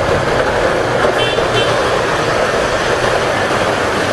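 Loud, steady street-market ambience: an even wash of traffic and crowd noise, with a few short high chirps a little over a second in.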